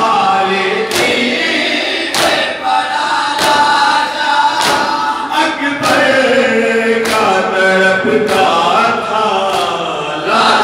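A group of men chanting a noha in unison over the crowd's chest-beating (matam), the hand strikes landing together in a steady beat about every second and a quarter.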